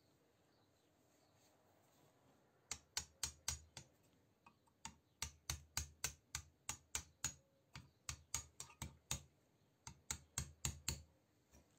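Sharp taps or clicks, about four a second, in runs with short pauses, starting about three seconds in and stopping shortly before the end.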